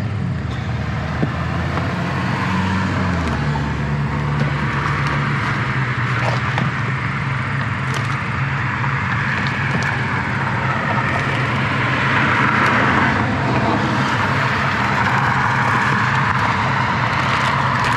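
Motor vehicle engine running steadily, its note shifting about three seconds in, under a steady rushing noise that grows slightly louder in the second half, with a few faint clicks.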